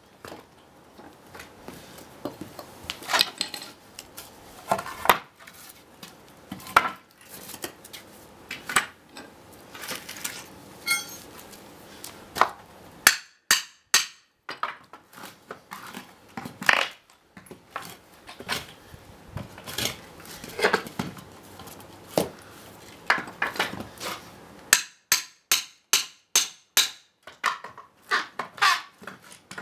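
Claw hammer striking EPAL pallet base boards and spacer blocks to knock them apart: sharp knocks and clinks, with quick runs of blows, about three a second, in the middle and near the end. Freed wooden blocks clatter as they land on a stack.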